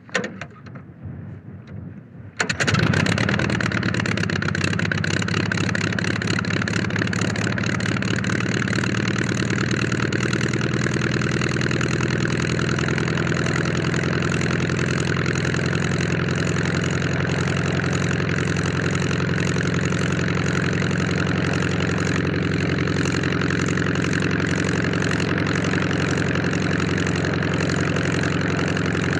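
Demoiselle single-propeller airplane's engine starting: a couple of seconds of irregular sputtering, then it catches about two and a half seconds in and settles into a steady idle.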